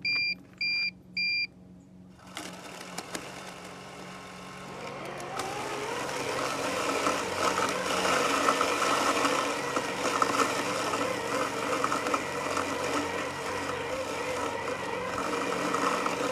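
Robotic lawn mower beeping three times, then its motor starting up. The whir rises in pitch over a second or two and settles into a steady running whine.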